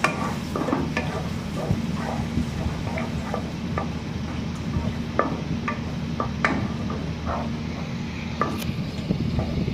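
Wooden spatula stirring and scraping thick masala gravy with yogurt around a non-stick kadai as it fries, in irregular scrapes and soft clicks over a steady low hum.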